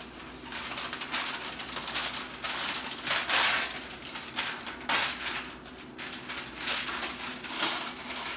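Parchment paper rustling and crackling as a long sheet and its roll box are handled, in a series of uneven bursts, loudest about three seconds and five seconds in.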